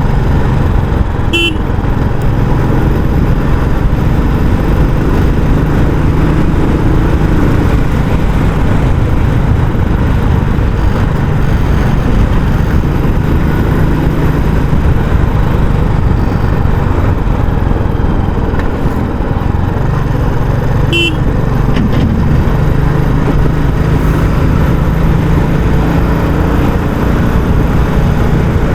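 Royal Enfield Classic 350's single-cylinder engine running steadily through its stock exhaust while the motorcycle is ridden. A horn gives two short toots, about a second in and again about 21 seconds in.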